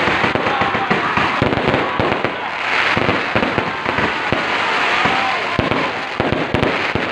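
Fireworks and firecrackers going off all around in a dense, continuous barrage: many overlapping sharp bangs and crackles, with no pause.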